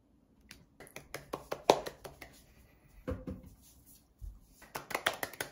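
A few scattered sharp clicks and taps, then from about four and a half seconds in, hands clapping quickly, several claps a second.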